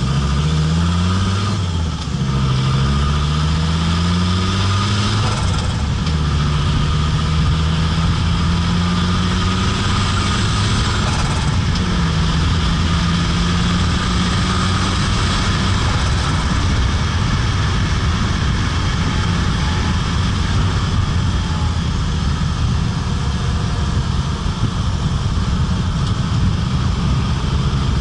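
Fiat Marea Turbo's turbocharged engine pulling up through the gears, its tone rising in each gear and dropping back at three upshifts, with a brief turbo flutter as the throttle lifts at each change, then settling to a steady cruise in the second half.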